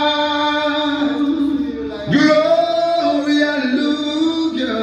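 A man singing long, held notes with little or no backing beat. This is the opening of a reggae dubplate played over the sound system.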